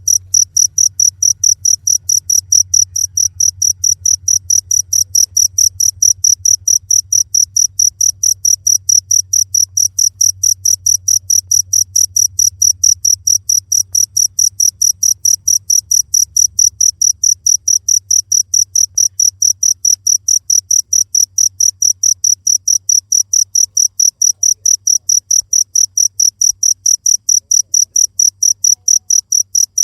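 Cricket chirping in rapid, evenly spaced high-pitched pulses that never change in pace or pitch, over a faint steady low hum.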